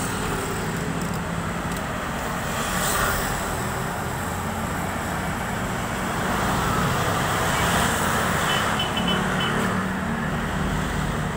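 Road traffic noise: a steady hum of passing vehicles, swelling a little about three seconds in and again from about six to nine seconds in.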